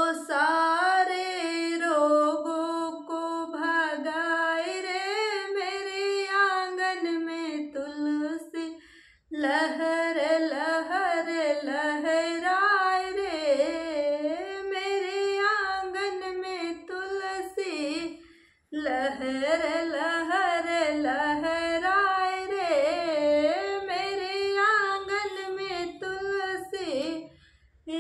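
A woman singing a Hindi devotional folk song to Tulsi Maiya, unaccompanied, in long held phrases with a wavering pitch, pausing briefly for breath about every nine seconds.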